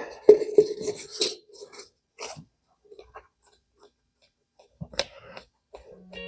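Scattered clicks, knocks and a brief squeak of metal hand-tool work, with an Allen key working the compressor's drain plug, and a sharp click about five seconds in. A guitar note from background music starts just before the end.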